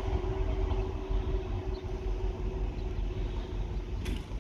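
Class 60 diesel locomotive running light, its engine giving a steady low rumble with a steady hum as it moves away down the line.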